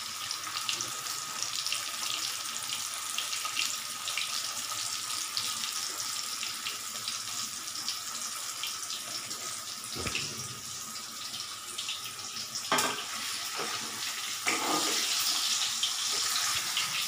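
Hot oil sizzling and crackling steadily as boiled potatoes shallow-fry in a steel kadai. In the second half come a few knocks of a metal spatula against the pan as the potatoes are turned.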